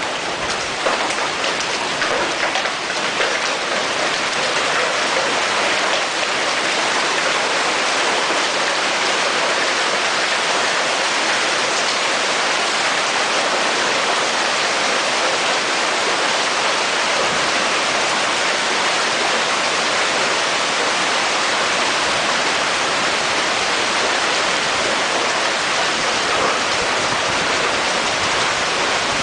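Storm downpour coming down steadily, a dense even hiss, with a few sharper hits in the first second or so.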